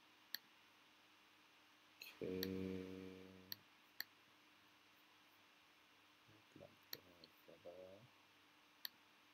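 A handful of sharp single computer clicks, spread out with near silence between them. A man's low held "hmm" about two seconds in, and a short low mumble near the end.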